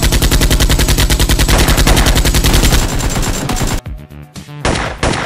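Automatic gunfire sound effect: a long rapid burst of about four seconds, a short break, then another burst starting near the end.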